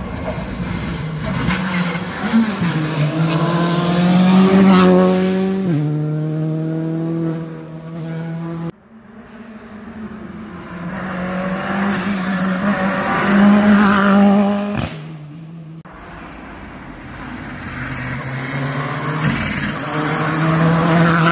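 Rally car engines under hard acceleration on a tarmac stage, in three separate passes cut together. In each pass the engine note builds as the car approaches, climbing with the revs and stepping down at each upshift. Each pass ends with an abrupt cut to the next.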